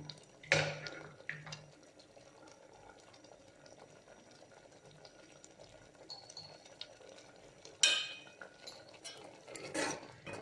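A spoon stirring a pot of simmering dal, with sharp knocks of metal on the pot shortly after the start, about eight seconds in and again near the end.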